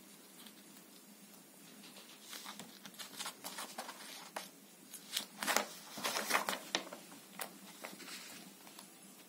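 Paper magazine pages rustling and crinkling as a cat pushes one open with her nose and paws: a run of quick rustles starting about two seconds in, loudest a little past the middle, then thinning out.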